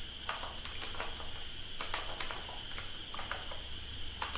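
Computer keyboard keystrokes: a handful of irregular, separate key clicks as a short line of code is typed, over a steady background hum.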